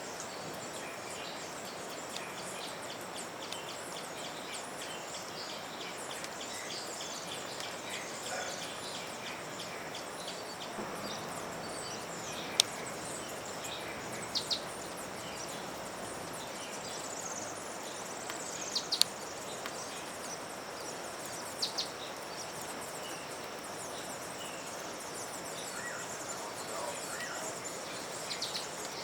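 Outdoor ambience of steady, high insect chirring with scattered short bird chirps, some sliding down in pitch. A few brief sharp clicks stand out above it.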